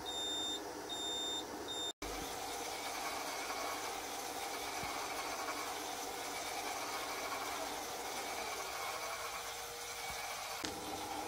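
Raytheon R10X radar display beeping an alarm, a high tone repeated in roughly half-second beeps with short gaps, warning of a bearing pulse error: no bearing pulses are reaching it from the scanner. About two seconds in the beeping stops and a steady hum and hiss of the running radar set follows.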